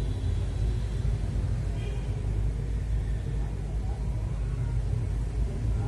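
Steady low background rumble, with no distinct clicks standing out.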